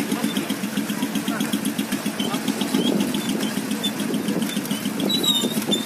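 An engine running steadily, with fast even firing pulses and short high chirps over it.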